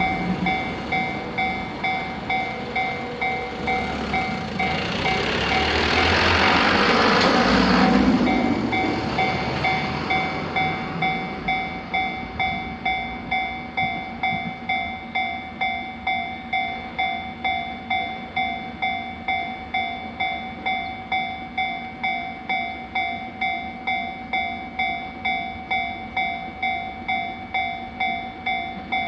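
Japanese level-crossing warning bell ringing in steady electronic dings, about two a second. A train passes over the crossing: its noise swells from about four seconds in, is loudest near eight seconds, then fades away while the bell keeps ringing.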